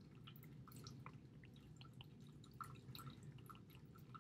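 Near silence: faint, scattered light ticks of a stylus writing on a tablet screen, over a low steady background hum.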